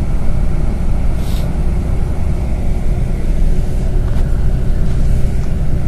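Steady low engine rumble heard from inside a vehicle's cabin, with a brief hiss about a second in.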